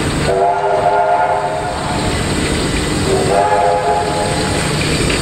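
K-class steam locomotive's whistle sounding two blasts of about a second and a half each, several notes at once, over the steady low rumble of passenger carriages rolling past.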